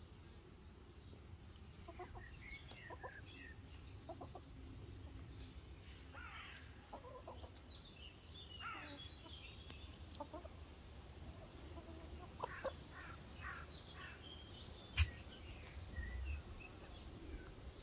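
Domestic hens clucking softly and giving short calls while foraging, with the calls scattered and overlapping. A single sharp click about fifteen seconds in is the loudest sound.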